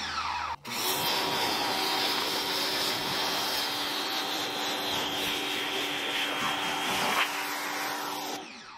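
Greenworks 1700 PSI electric pressure washer running, its motor humming steadily under the hiss of the water jet spraying onto a car's side panels. The motor and the spray stop together near the end as the trigger is released, and the unit cuts off quickly.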